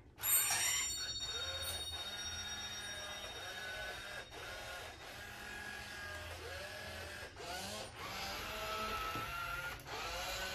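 Robosapien V2 toy robot's gear motors whirring as it swings its arms through a programmed move, starting suddenly and running on with short rising whines repeating about every half second.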